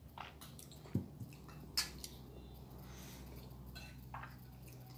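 Metal spoons clinking against eating bowls, a few short sharp clinks with the clearest about a second in and just under two seconds in, amid soft eating sounds.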